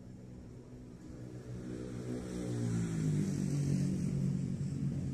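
A motor vehicle's engine approaching and growing louder, its pitch rising about two seconds in and then holding steady.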